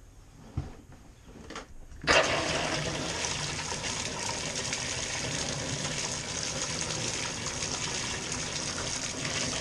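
A couple of faint knocks, then about two seconds in water suddenly starts gushing from the tub spout and splashes steadily into the tub. This is the first run through a freshly installed Moen 1225B cartridge.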